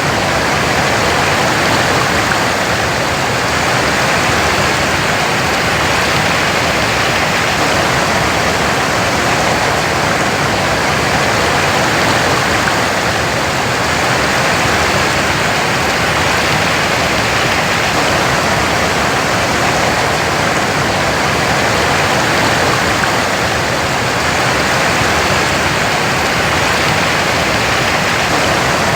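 Waterfall pouring steadily: a loud, even rush of falling water with no pauses or changes.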